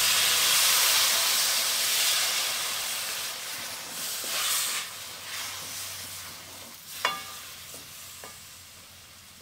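Water poured into a hot kadhai of fried besan masala and boiled baby potatoes sizzles loudly, the hiss fading slowly over the seconds that follow. A spatula stirs and scrapes through the pan, with one sharp knock of it against the pan about seven seconds in.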